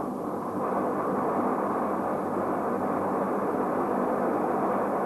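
Steady drone of a C-130 Hercules's turboprop engines running, a dull, even noise without breaks.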